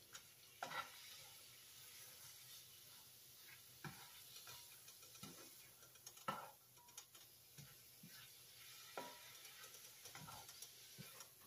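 Swiss chard sizzling faintly in sausage drippings in a nonstick skillet, with a spatula scraping and tapping the pan every second or two as the greens are stirred and wilt down. The loudest scrape comes about six seconds in.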